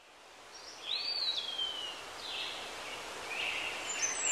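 Forest ambience fading in: a steady background hiss with birds calling. About a second in one call rises and then slides down in pitch, and more chirps overlap near the end.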